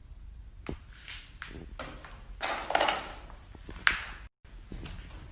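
A string of irregular sharp knocks and clicks with a short scuffing rustle in the middle, typical of steps and handling on a hard floor in an empty room; the sound cuts out completely for a moment about four seconds in.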